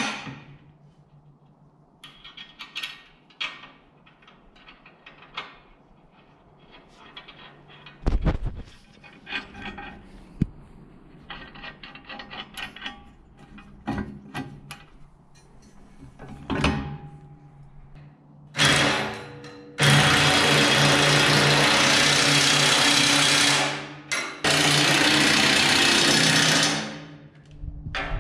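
Scattered clinks and knocks of metal parts and hardware being handled, then a power tool running loud and steady for several seconds, stopping briefly and starting again.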